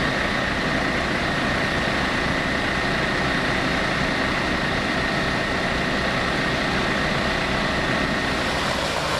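A heavy vehicle engine running steadily, with a throbbing low rumble and a faint high steady whine above it.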